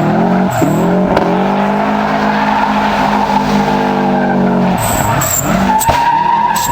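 Subaru Impreza's flat-four engine revving up and held at steady high revs while the tyres squeal through an all-wheel-drive drift. The revs drop off a little under five seconds in, and the tyre squeal carries on.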